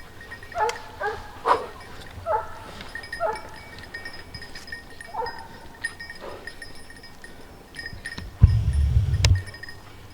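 Hunting dogs barking and baying in a string of short yelping calls. About eight seconds in, a loud low rumble of wind or handling noise on the microphone lasts about a second and ends with a sharp click.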